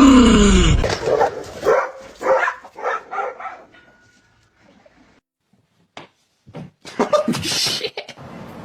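A dog vocalizing in a string of short barking calls, starting with a falling drawn-out call. After a lull, short noisy bursts follow near the end.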